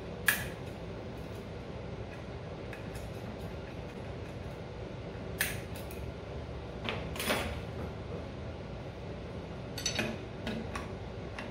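Metal hand tools clinking as they are handled and set down in a metal lathe's chip tray: one sharp clink at the start, two more a little past halfway, and a few light taps near the end, over steady room noise.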